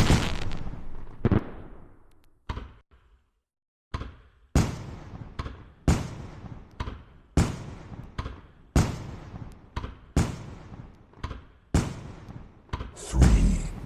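Firework sound effect: a big burst fading away, a moment of near silence, then a regular series of sharp bangs about every second and a half, each with a decaying crackle, and a louder rushing burst near the end.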